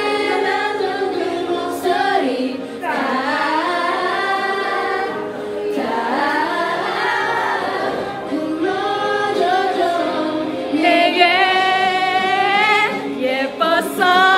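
Several voices, mostly female, singing a song together.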